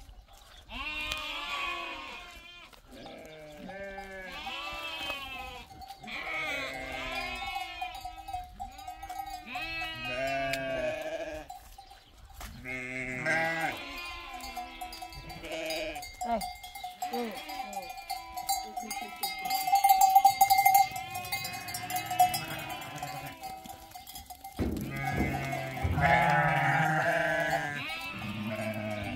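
A flock of sheep bleating, many calls overlapping one after another, loudest about two-thirds of the way through.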